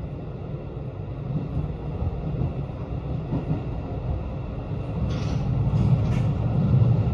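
JR Hokkaido 721 series electric train running at speed, heard from inside the carriage as a steady low rumble. There are a few sharp clicks about five to six seconds in, and the rumble grows louder near the end as the train crosses a river bridge.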